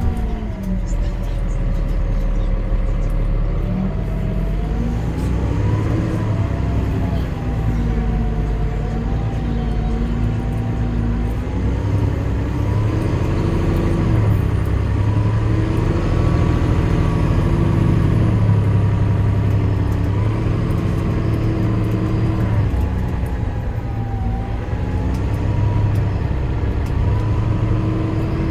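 Cummins ISL diesel engine and ZF automatic transmission of a 2008 NovaBus LFS city bus, heard from inside the passenger cabin while driving. The engine note rises and falls repeatedly with speed, over a steady low road rumble.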